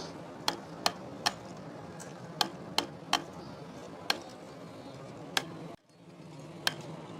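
Light, sharp metallic taps at irregular intervals, about nine of them, over a steady low hum.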